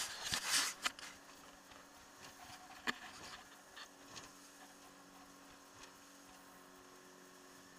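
Camera handling noise: rubbing and a few sharp knocks, loudest in the first second, over a faint steady low hum.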